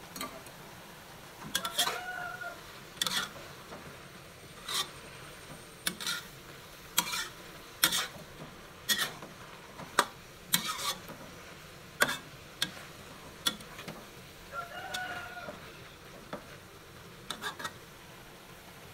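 Spatula scraping and knocking against a wok while stir-frying vermicelli, chicken and vegetables, roughly one sharp scrape a second over a soft sizzle.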